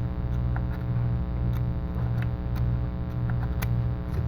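Steady electrical mains hum, with faint scattered ticks of a sharp tool picking and scraping dust out of an iPhone 5s charging port.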